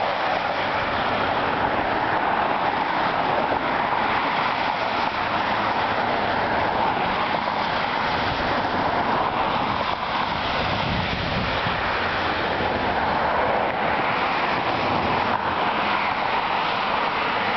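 Steady road traffic noise from cars on a busy multi-lane road, an even rushing hiss without breaks.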